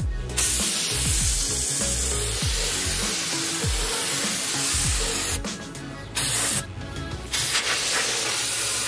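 Aerosol brake cleaner hissing out of its straw onto a new slotted brake rotor, cleaning it after the pad and rotor install. One long spray of about five seconds is followed by two shorter bursts.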